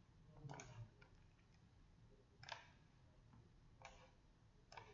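Near silence with a few faint, spaced computer-mouse clicks.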